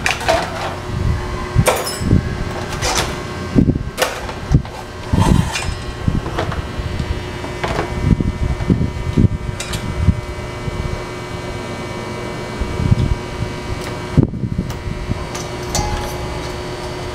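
Irregular knocks and clicks of an amplifier's metal front panel and its circuit board being handled and fitted back into the steel chassis, over a steady background hum.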